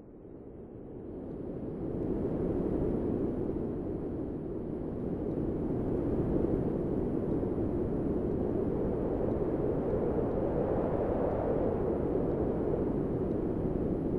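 Recorded wind sound effect: a low, rushing wind noise that swells up over the first two seconds, then blows on steadily with slow rises and falls.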